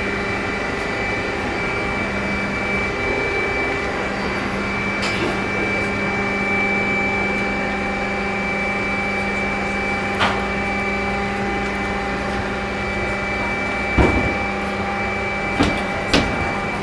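Steady cabin noise inside a Boeing 737-500: the jet engines' hum with several constant whining tones over it. A few sharp knocks come in the second half.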